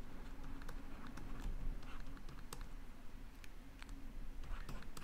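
Light, irregular clicks and taps of a stylus tip on a tablet screen during handwriting, over a faint low hum.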